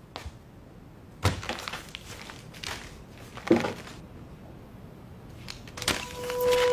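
Clear plastic document folders handled at a desk. There is a thunk a little over a second in, crackling and rustling of plastic and paper, and another knock about three and a half seconds in. Music with a held tone comes in near the end.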